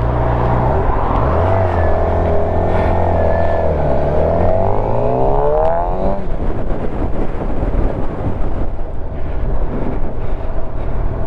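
Suzuki GSX-R750 inline-four sportbike engine running under way. Its pitch holds, dips about four seconds in, then climbs over the next two seconds as the bike accelerates. After that a steady rushing noise takes over, with the engine fainter beneath it.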